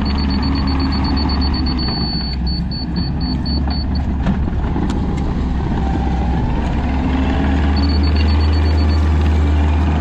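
Kubota SVL90-2 compact track loader's diesel engine running steadily as it grades dirt, with a high-pitched back-up alarm beeping for the first four seconds and again briefly near the end.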